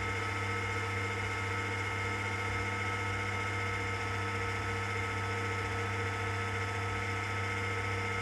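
Electric potter's wheel motor running steadily: a constant low hum with a couple of thin, steady high whines above it.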